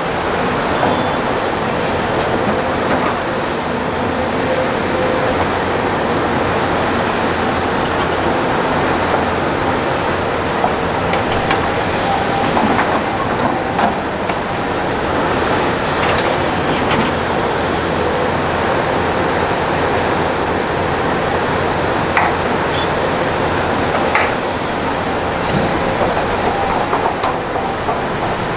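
Diesel engines and hydraulics of hydraulic excavators running steadily under load while digging and loading dirt, with a few sharp knocks along the way.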